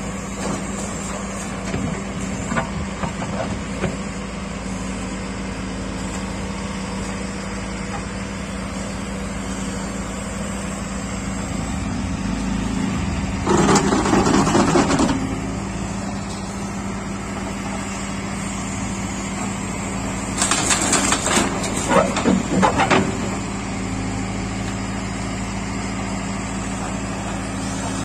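Bull HD76 backhoe loader's diesel engine running steadily while the backhoe digs, with two louder noisy spells, one about halfway through and another around two-thirds of the way in.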